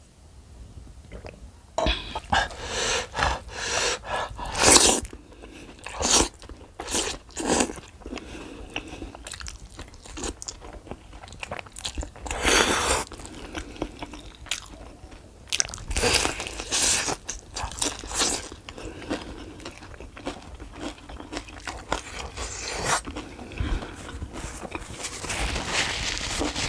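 Close-up eating sounds: fried chicken and rice being bitten, crunched and chewed, with loud irregular crunches starting about two seconds in.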